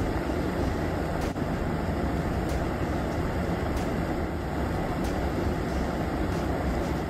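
Steady rush of a shallow river running fast over rocks.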